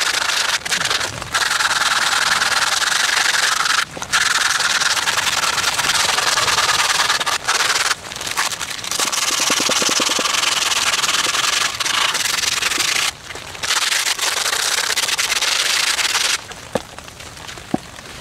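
Coarse 40-grit sandpaper rubbed over a hand-carved wooden workpiece: a scratchy sanding hiss in long runs of strokes broken by brief pauses, turning quieter near the end.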